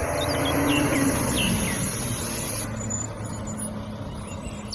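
Rear-loading garbage truck's diesel engine running, a steady low drone whose pitch drops slightly about two seconds in, with a few short high chirps in the first half.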